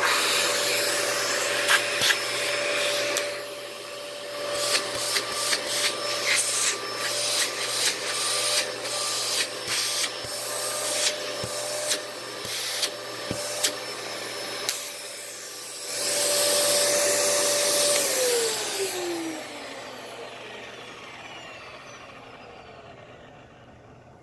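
Dyson DC14 upright vacuum running on carpet, with many sharp clicks and rattles through the middle. It is then switched off, and the motor tone falls as it spins down. The owner says it doesn't sound the best because the brush-bar clutch is shot.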